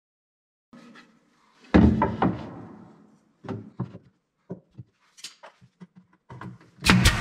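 Wooden knocks and thuds from working under a wooden workbench. A heavy thud comes about two seconds in and another near the end, both dying away slowly, with lighter knocks between them.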